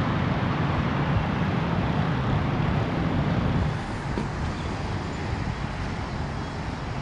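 Steady road traffic noise with a low engine hum, easing slightly about four seconds in.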